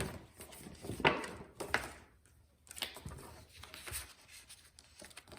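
Faint handling noises: a few light taps and brief rustles as paper instructions and packaging are handled, the clearest about one and two seconds in.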